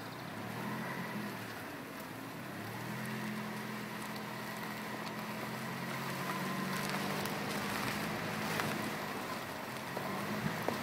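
A steady engine hum of a few low tones, strongest from about three seconds in until near the end, over a constant outdoor hiss.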